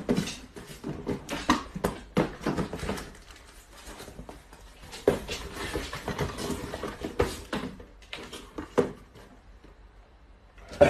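Cardboard cartons being handled, knocked together and set down on a hard floor: irregular knocks and short papery rustles, thinning out near the end.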